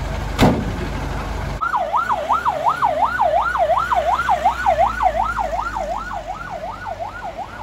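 Ambulance siren in a fast yelp, its pitch sweeping up and down about three times a second. It starts about one and a half seconds in, after a low rumble and a single sharp knock, and fades a little toward the end.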